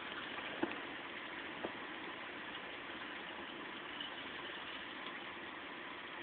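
Heavy rain falling steadily during a severe thunderstorm, with two sharp ticks about a second apart near the start.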